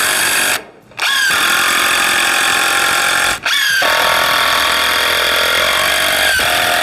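DeWalt cordless drill driving screws into 2x4 lumber in three runs: a short one that stops about half a second in, a longer one, and a third from just before the midpoint. The motor's whine rises in pitch as each run starts.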